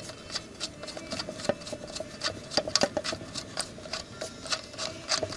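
Rapid, irregular light metallic clicking as a bolt on a Briggs & Stratton engine's connecting-rod cap is worked loose, with a louder burst of clicks near the end.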